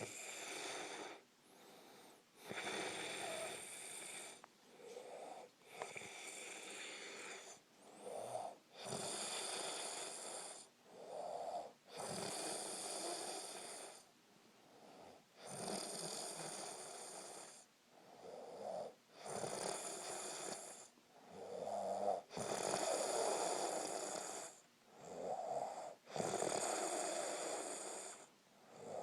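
A man snoring loudly in his sleep: breath after breath, each lasting a second or two, with short pauses between.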